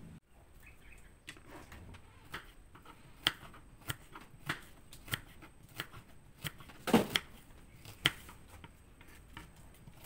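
Kitchen knife slicing fresh ginger root on a wooden cutting board: a series of about a dozen short taps as the blade cuts through and hits the board, at an uneven pace of a little more than one a second, the loudest about seven seconds in.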